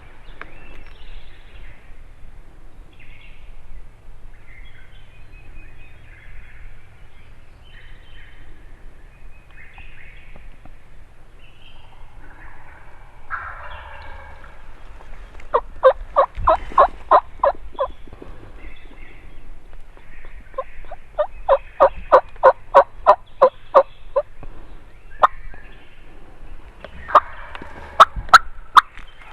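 Wild turkey gobbles, rough rattling bursts, come about halfway through and again near the end. Between them are two loud runs of sharp, evenly spaced turkey yelps, about four notes a second.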